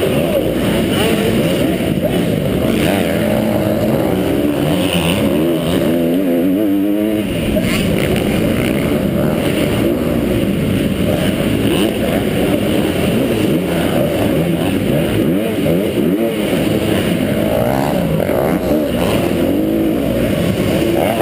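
Motocross bike engine revving hard and easing off again and again while racing on a dirt track, heard up close from the rider's helmet. The pitch rises and falls constantly, with a quick run of revs about six seconds in.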